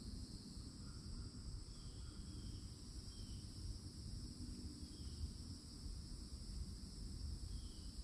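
Cicadas singing in a steady, unbroken high drone, with a few faint short bird chirps and a low rumble underneath.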